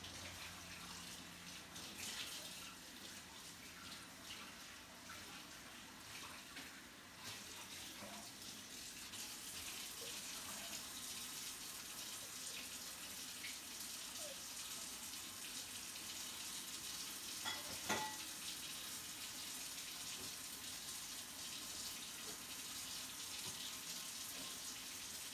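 Mushrooms sizzling in a frying pan: a steady hiss with scattered small pops, and one sharper click about eighteen seconds in.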